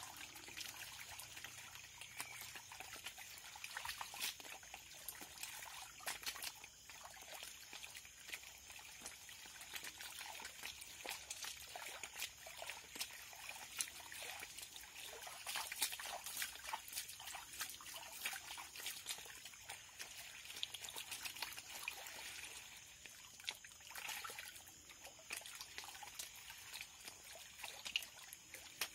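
Water sloshing and trickling as a gold pan of fine gravel is swirled and dipped in a muddy pool, with a steady patter of small splashes as the light material washes over the rim.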